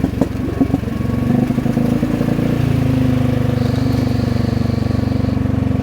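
Vespa GTS 250 scooter's single-cylinder four-stroke engine running on the move through a loud exhaust, a steady pulsing note that grows fuller about two and a half seconds in.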